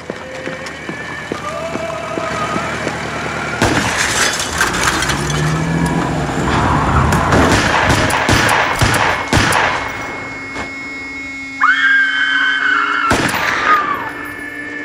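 A rapid run of pistol shots with crashes and thuds. A woman then screams, a high held cry from about twelve seconds in, and another shot follows shortly after.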